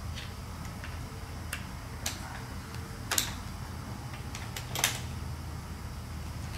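Scattered small metallic clicks and taps as bolts are taken out of a handlebar-mounted GPS mount, about four distinct clicks with the loudest near the end, over a steady low hum.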